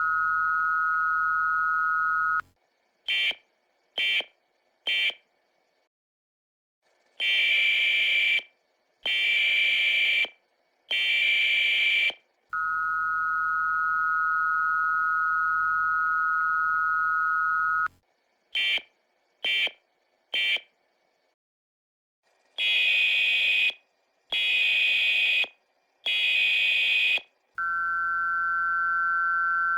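US Emergency Alert System audio played back about one and a half times too fast. The steady two-tone attention signal is held for a few seconds, followed by three short bursts and then three longer bursts of high, rasping digital data tones (the SAME end-of-message and header codes). The cycle runs twice. Near the end the attention tone returns slightly higher in pitch.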